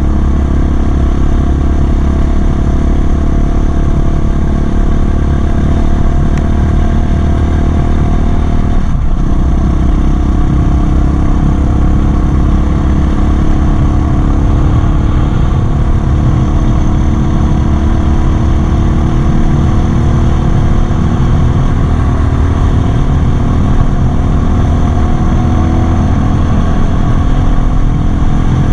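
Apollo DB-36 dirt bike engine running steadily under way, heard from the handlebars with a heavy low rush of wind. The engine note dips briefly about nine seconds in, then carries on at a new pitch.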